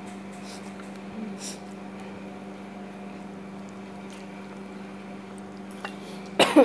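Soft squishing of fingers pressing cooked rice and pulling at roast chicken, over a steady low hum. Near the end comes a sudden loud cough.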